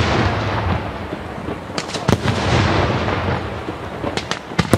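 Italian daytime fireworks: a dense, continuous rumble of aerial shell bursts, with a few sharp cracks standing out about two seconds in and again near the end.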